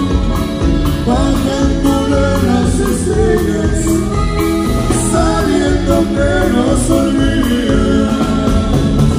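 Live band music with button accordion and saxophone over a drum kit, congas and bass, played loud with a steady beat.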